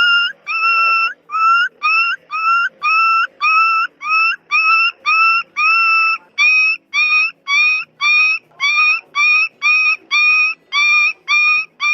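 Puppy crying in a rapid string of short, high-pitched yelps, about two a second, each rising briefly at its start before holding steady.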